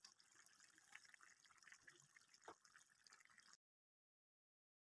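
Near silence: faint bubbling of chicken braising in its own spiced juices in a wok, with a small click about two and a half seconds in. The sound drops out completely about a second before the end.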